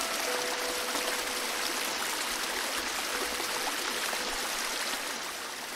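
Small creek running steadily over gravel and stones, an even hiss of water.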